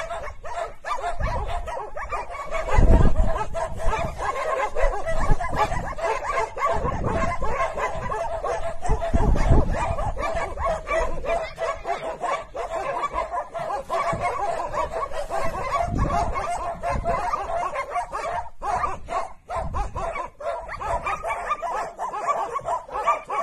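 Several dogs barking hard and continuously, with yelps and whimpers mixed in, as they bay a wild cat they have cornered. A few low thumps sound under the barking.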